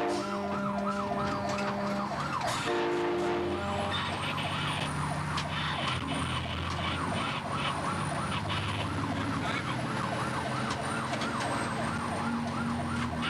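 Fire rescue truck's siren sounding a fast rising-and-falling yelp, with a short blast of its train horn about three seconds in and the truck's engine running underneath.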